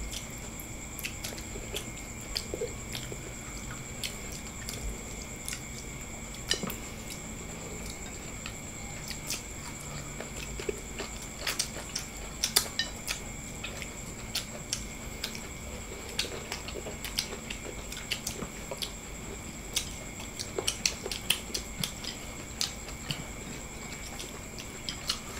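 Eating at a table: scattered soft clicks and clinks of plates and spoons, with chewing, some sharper taps a few times a second around the middle. A faint steady high-pitched tone sits under it throughout.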